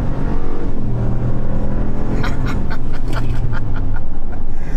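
The 2019 Ram 1500's 5.7-litre Hemi V8 under hard acceleration, heard from inside the cab, with a gear change just after the start. The engine note falls away about four seconds in.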